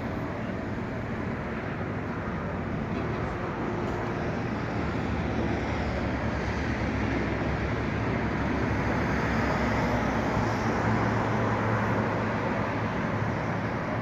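Steady noise of a car on the move, a low engine hum under road noise, growing slowly louder.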